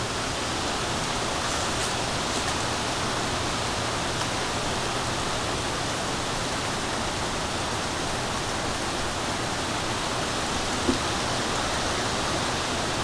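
Steady rushing of storm wind, even in loudness throughout, with a single brief tap about eleven seconds in.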